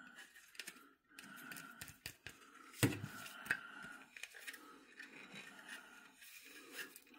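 Fingers scraping and picking at loose plastic flash on a plastic cotton candy machine part, in short scratchy strokes with scattered clicks and one sharper knock about three seconds in.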